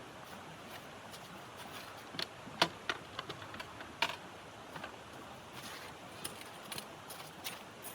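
Scattered light clicks and knocks over a steady hiss, the sharpest about two and a half seconds in.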